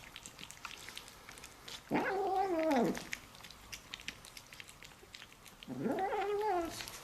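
A cat making drawn-out moaning calls while it eats, two of them about a second long each: the first falls in pitch at its end, the second rises and then holds. Short clicky chewing sounds run between the calls.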